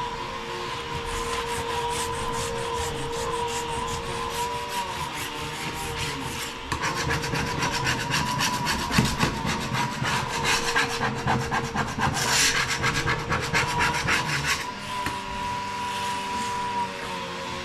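Rapid rasping, scraping strokes of a tool worked against a hard surface, growing louder and busier about seven seconds in and stopping shortly before the end, over a steady faint hum.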